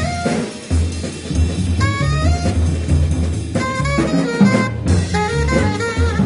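Instrumental background music with a drum beat, a bass line and a stepping melody line.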